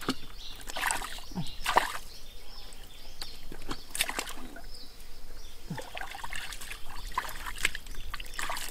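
Hands groping and sloshing through shallow muddy water, with irregular splashes and drips as the mud is worked by hand.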